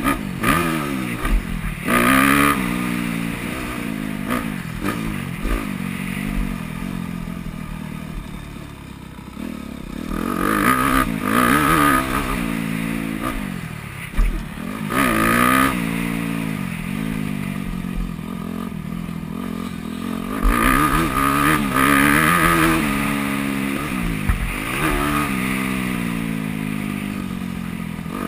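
2009 Yamaha YZ250F's four-stroke single-cylinder engine revving up and dropping back again and again as the bike is ridden around a motocross track, heard from a helmet-mounted camera. There is a sharp knock about halfway through.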